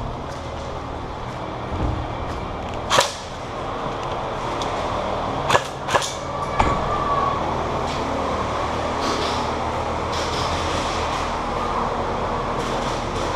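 Airsoft guns firing: a sharp pop about three seconds in and three more in quick succession around six seconds in, over a steady background rush.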